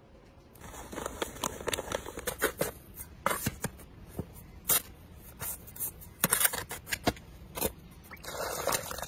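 A steel trowel scraping and stirring through dry aluminous refractory cement mix (ciment fondu) in a tub, a run of uneven gritty scrapes and crunches starting about half a second in.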